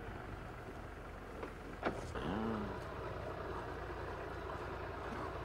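Quiet harbour ambience at the quayside: a steady low rumble, a single sharp knock about two seconds in, then a short distant call.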